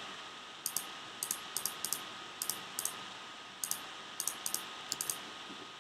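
Clicks of a computer mouse and keyboard: short, sharp clicks at irregular intervals, often in quick pairs, over a low steady hiss.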